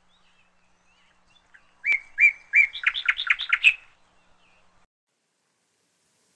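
A bird singing: about two seconds in come three spaced, high chirping notes, then a quicker run of about seven more that stops about four seconds in.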